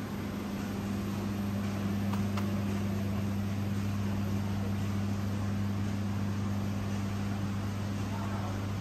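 Steady low hum of a large supermarket hall's ventilation and refrigeration plant, with a soft background hiss and a couple of faint clicks about two seconds in.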